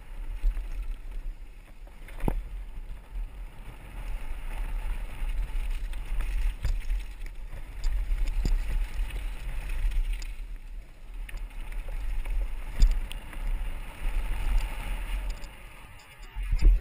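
Downhill mountain bike descending a dirt trail, heard from a helmet-mounted camera: a steady rumble of wind and knobby tyres on dirt, with a handful of sharp knocks as the wheels hit bumps and landings, the loudest near the end.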